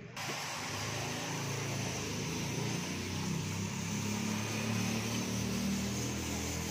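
A motor running steadily, a low hum under a constant hiss, starting abruptly about a quarter second in.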